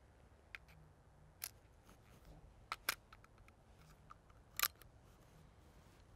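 Faint metallic clicks of a Mateba Unica 6 revolver being handled and readied, about five clicks spread a second or so apart, the loudest near the end.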